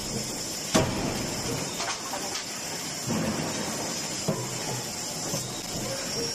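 C92K-series 125 kJ CNC fully hydraulic closed die forging hammer striking a red-hot cross-shaft billet in the die. There is a sharp blow about a second in and a smaller one around four seconds in, over steady, even forge-shop noise.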